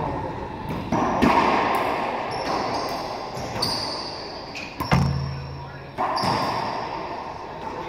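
Racquetball rally: the ball cracks off racquets and the court walls about half a dozen times at an uneven pace, each hit ringing on in the court's echo, with short high squeaks between them, most likely sneakers on the hardwood floor.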